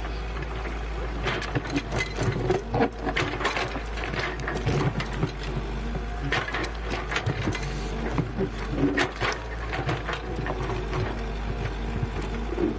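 A machine's engine runs steadily. From about a second in, frequent irregular clattering knocks and scrapes sound over it.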